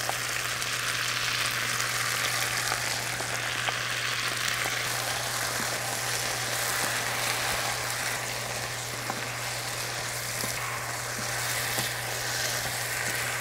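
Chicken pieces, potatoes and vegetables sizzling steadily in a frying pan on high heat as a red pepper paste sauce is stir-fried through them with a wooden spatula, with a few faint spatula taps.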